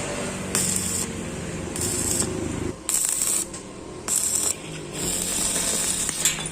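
Repeated short bursts of hissing, about five of them, each around half a second, over a low steady mechanical hum that stops about three seconds in.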